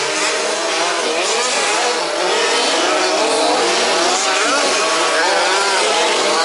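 Several 1/5th-scale petrol two-stroke RC off-road cars racing together. Their small engines rev up and down over one another in quick, overlapping rising and falling whines.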